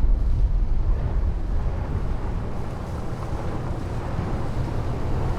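Wind buffeting the microphone as a steady low rumble, over a wash of open-sea water noise.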